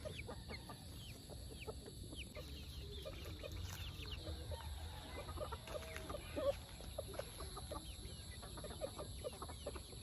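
A flock of Rhode Island Red hens clucking quietly while foraging, with many short, falling high-pitched calls scattered throughout.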